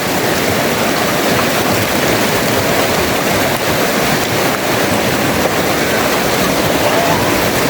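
Flowing river water, a steady, loud rush.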